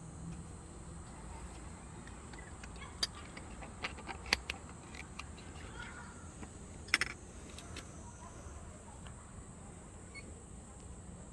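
A few sharp clicks and a short clatter of plastic and metal being handled, the loudest about seven seconds in, over a faint steady hiss: the handling of an EV charging cable's plug and the car's charge port.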